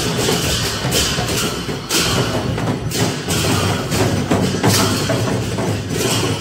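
A group of Newar dhimay drums, large two-headed cylindrical drums, beaten together in a procession, giving loud, dense drumming with a steady beat of heavy strokes.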